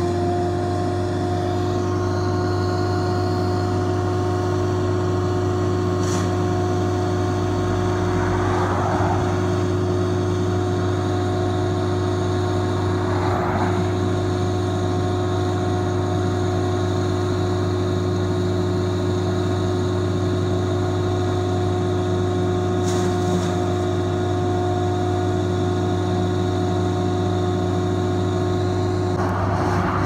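Tow-behind wood chipper's engine running at a steady speed with a constant hum, with a few short rushes of noise over it; a car passes near the end.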